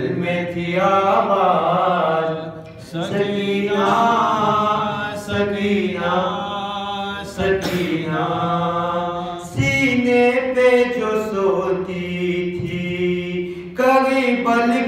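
A man chanting a marsiya, a mourning elegy, solo and unaccompanied, in long melodic phrases with held notes and brief pauses between them.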